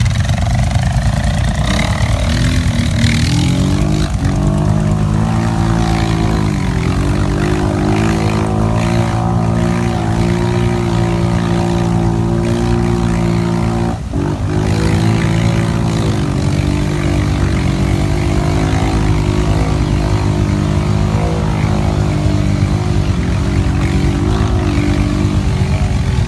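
ATV engine running steadily as it pulls through deep muddy water. Its pitch sags and recovers a few times, with a sharp brief dip about fourteen seconds in.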